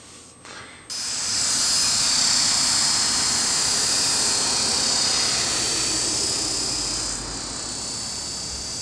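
Esky Honey Bee King 2 electric RC helicopter in flight: a steady high whine of motor and gears over the hiss of the spinning rotor, starting suddenly about a second in and easing off about seven seconds in as it climbs away.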